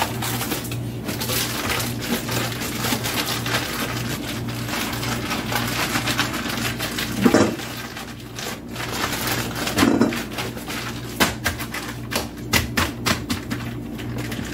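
Plastic freezer bag crinkling and rustling as it is handled and worked. Near the end come a run of sharp clicks and taps.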